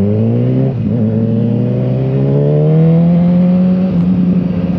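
BMW motorcycle engine pulling under acceleration. Its pitch climbs, drops at a gear change under a second in, then rises steadily again and levels off to a constant cruise.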